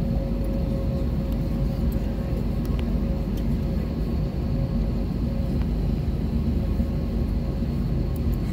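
Airbus A321 cabin noise while taxiing: a steady low rumble from the jet engines at taxi power, with a thin steady whine on top.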